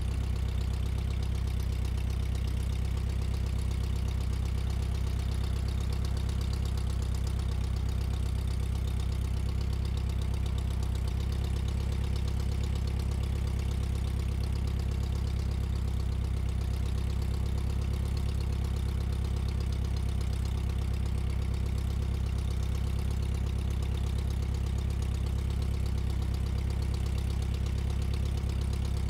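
Engine idling steadily, an even low drone whose note shifts slightly about eleven seconds in.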